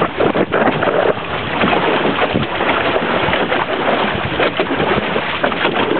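Water rushing and splashing along a small outrigger sailing canoe's hull under way at about five knots, with wind buffeting the microphone.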